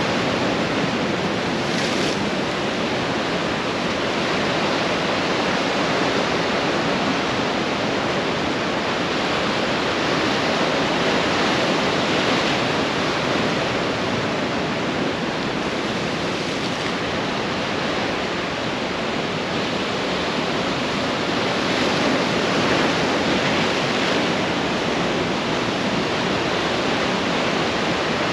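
Ocean surf breaking and washing on a beach: a steady rush of water that swells and eases gently every few seconds.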